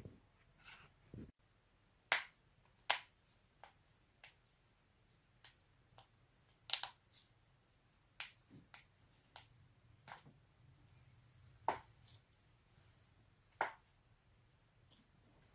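Neck and back joints cracking: about fifteen sharp pops at irregular intervals, a few of them much louder than the rest.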